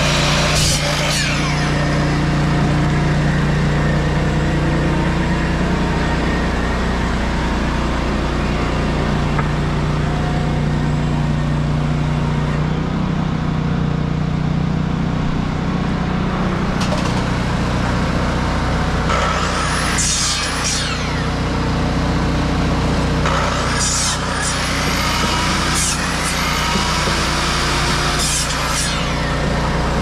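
1953 Detroit Diesel 3-71 two-stroke three-cylinder power unit running steadily, driving the sawmill. About twenty seconds in, and again near the end, short clattering strokes and high whines that rise and fall come from the mill.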